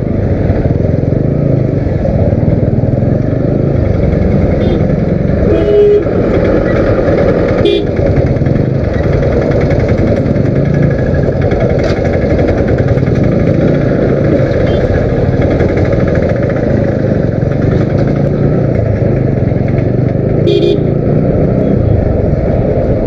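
Motorcycle running steadily at road speed in traffic, with a vehicle horn sounding briefly about six seconds in and again near the end.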